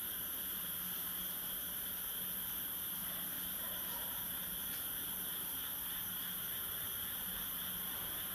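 Steady night-time insect chorus, several insects singing at once in high, continuous tones, with a faint low hum underneath.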